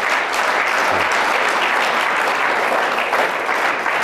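Studio audience applauding, a steady dense clapping of many hands.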